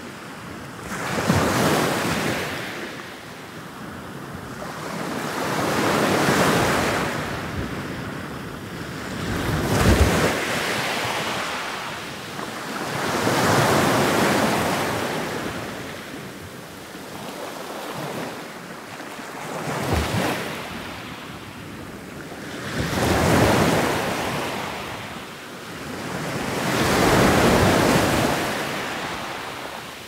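Ocean waves breaking in a series of surges, about eight in all, roughly every four seconds. Each one swells to a crash and washes away.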